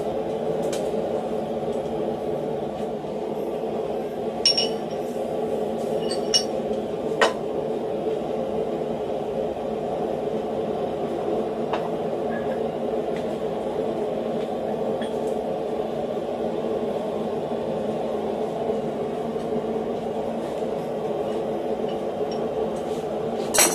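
Steel blacksmithing tools and tongs clinking a few times against a steel bolster block, over a steady low drone. One hammer blow on hot steel lands near the end.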